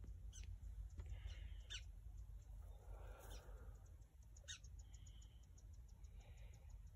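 Near silence: faint outdoor background with a steady low rumble and a few faint, short high chirps or clicks.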